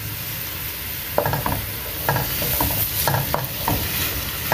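A wooden spoon stirring chopped onions, tomatoes and chillies in a wok of melting butter and oil, scraping the pan in short repeated strokes from about a second in, over a steady sizzle.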